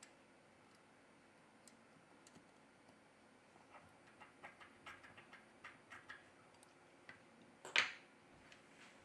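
Light clicks and taps of a plastic pry tool on a smartphone's motherboard and flex connectors, a dozen or so over a few seconds. Near the end comes one louder click as a flex cable connector is pressed home onto the board.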